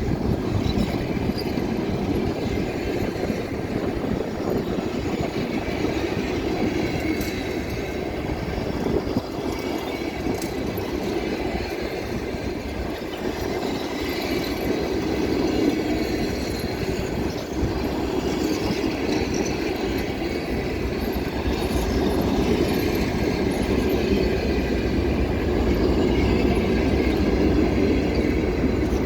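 Passenger train rolling past, its wheels clattering over rail joints with occasional faint wheel squeal, slowly growing louder near the end.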